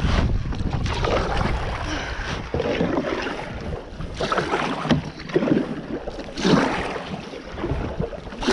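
Double-bladed kayak paddle dipping and pulling through the water, splashing in a steady rhythm of about one stroke a second, with wind buffeting the microphone.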